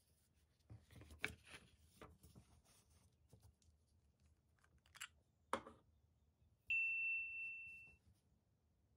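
Paper and a fountain pen being handled on a wooden table: soft rustles of the paper, then a couple of sharp clicks as the pen is uncapped. About two-thirds of the way through, a single clear bell-like ding rings out and fades over about a second.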